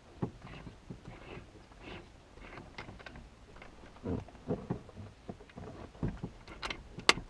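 Irregular clicks, knocks and light rattles of a boat's steering cable and helm hardware being handled as the cable is fed into a tilt helm, with one sharp click near the end.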